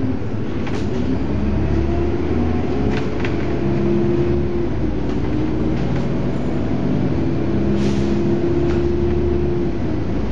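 Volvo Olympian double-decker bus's diesel engine running under way, heard from on board, its note rising and levelling off several times as the bus pulls along. Short clicks and rattles come now and then.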